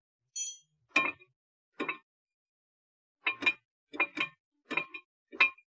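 A brief high-pitched ring, then about nine sharp metallic clinks, several in quick pairs, as brake parts and tools are handled at the front brake caliper.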